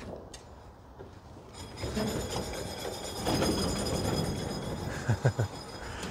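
A Cushman Titan electric shop truck being rolled off a trailer with its motor not running, giving a rough scraping and rubbing noise that builds after a second and a half. Three short, sharp creaks come close together about five seconds in.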